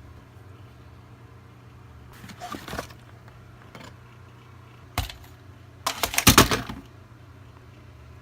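Clattering and handling noises: a short rattle, a single sharp click, then a louder burst of rattling about six seconds in, over a steady low hum.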